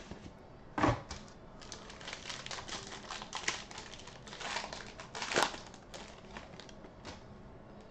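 Foil wrapper of a Panini Crown Royale basketball card pack crinkling and tearing as it is ripped open by hand, in irregular crackles with sharper rustles about a second in and again just past the halfway point.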